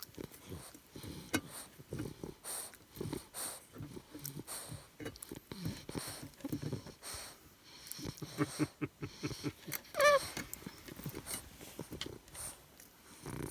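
A 13-week-old English bulldog puppy playing wildly and making a string of short, irregular grunts and noises, with scuffling knocks. About ten seconds in comes one brief high-pitched yelp, the loudest sound here.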